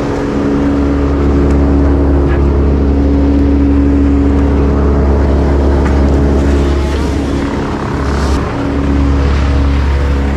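Wood chipper's engine running steadily at working speed, its pitch briefly breaking and the level dipping about eight seconds in before it settles back.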